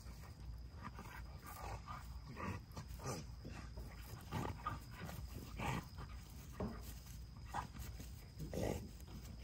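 An adult XL pit bull and a young pit bull puppy wrestling, growling in short bursts about once a second.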